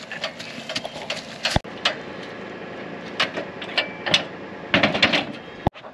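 Irregular clattering and knocking of a heavy object being dragged, with a sharp knock about a second and a half in and another near the end, over a steady low hum.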